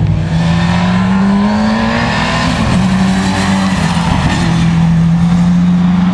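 Ford Escort RS Cosworth rally car's turbocharged four-cylinder engine running hard as the car goes by. The note rises over the first couple of seconds, wavers in the middle, then holds steady as the car pulls away.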